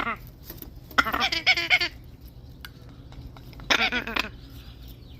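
A parrot calling loudly three times: a short call at the start, a long wavering call about a second in, and a shorter one near the end.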